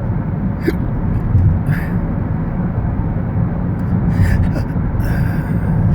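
A man's short, sudden hiccups, about one, two and four seconds in, over a steady low background rumble.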